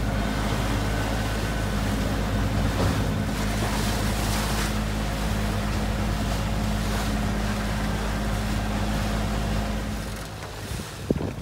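Wind and a choppy sea rushing past a moving catamaran, over the steady low hum of its engine. The hum and much of the rush drop away about ten seconds in.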